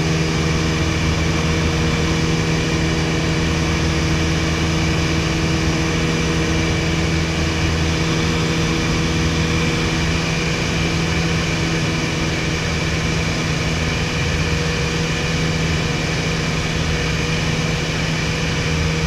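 Engine and propeller of a 1961 Piper PA-22-108 Colt, a 108-horsepower Lycoming O-235 four-cylinder, running steadily in cruising flight, heard from inside the cabin as an even drone mixed with airflow noise.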